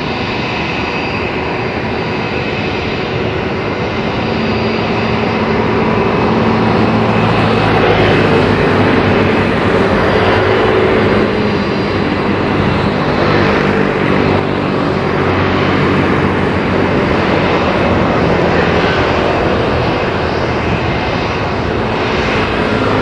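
Airbus A320-232's IAE V2500 turbofan engines running at taxi thrust as the airliner rolls slowly past: a steady jet whine and rumble with several held tones.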